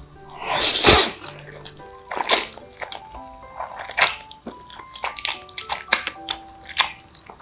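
A person slurping a big mouthful of jjajangmyeon noodles in black bean sauce, one long loud slurp about half a second in, followed by several shorter wet chewing and mouth sounds. Soft background music plays throughout.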